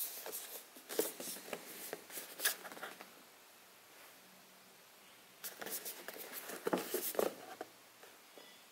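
A cardboard product box being handled and turned over in the hands: fingers rubbing and scraping on the packaging in two spells of rustling, with a pause of about two seconds between them.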